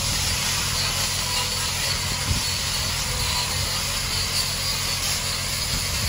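Stick welding with a 7018 rod: the arc crackles and sizzles steadily. Under it runs the low, steady hum of the engine-driven welding machine, and there is a brief thump about two seconds in.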